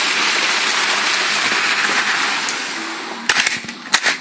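Heavy rain pouring down steadily, fading over the last second or so, with a few sharp knocks near the end.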